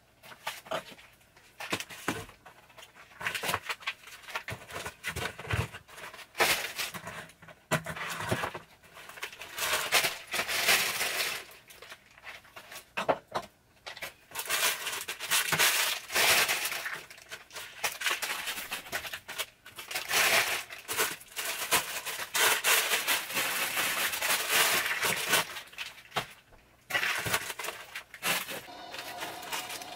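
Plastic food packets crinkling and rustling as they are handled and moved around on pantry shelves, in uneven bursts with occasional knocks of boxes and tins being set down.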